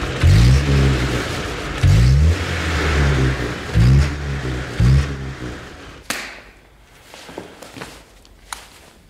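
A car engine revved hard four times in quick succession as the accelerator pedal is pumped, each rev rising sharply in pitch and falling back. About six seconds in, the engine sound cuts off, leaving quiet room tone with a few faint clicks.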